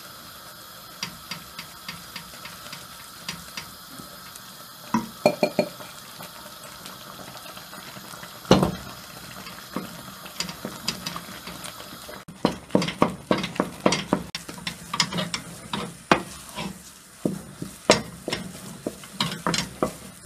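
Choux pastry dough being stirred in a pot on the stove: a utensil scraping and knocking against the pot. A few scattered knocks at first, then fast, steady stirring strokes through the second half as the flour is cooked into the water and butter so it doesn't go lumpy.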